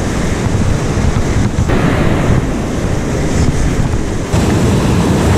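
Rough sea surf breaking and washing against rocks, a loud, continuous rushing.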